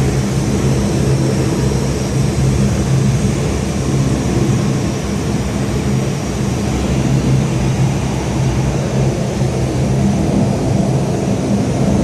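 Shop machinery running: a steady drone with a low, even hum.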